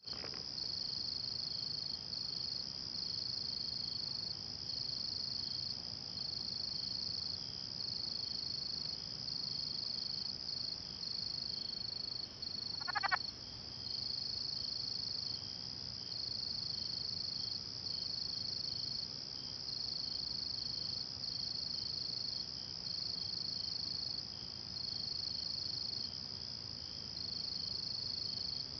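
A southern leopard frog gives one brief call about halfway through, over a steady, high-pitched insect chorus that pulses throughout.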